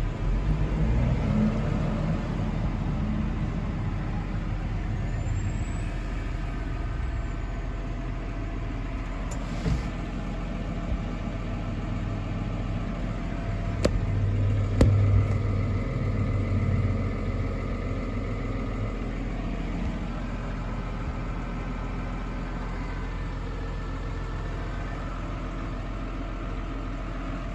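New Holland T7.225 tractor's six-cylinder diesel engine idling steadily, heard from inside the cab. Its low hum swells briefly about halfway through, with two sharp clicks.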